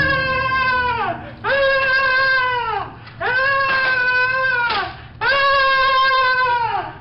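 A woman screaming over and over: four long, high, held screams, each dropping in pitch as it ends, with short breaks between them.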